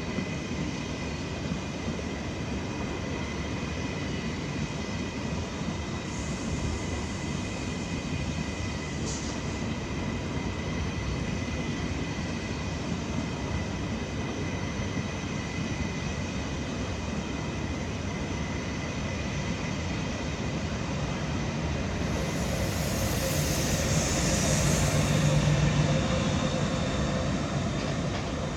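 Electric train running through the station: a steady rumble with thin, high whining tones. It grows louder and hissier from about 22 to 26 seconds in.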